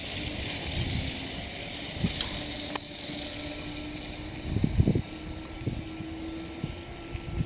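Kintetsu 2410-series local electric train pulling away from the station and gathering speed, with a steady motor hum creeping slightly upward in pitch and a thin higher whine joining about three seconds in. A few low thumps come about four and a half seconds in, over a steady hiss.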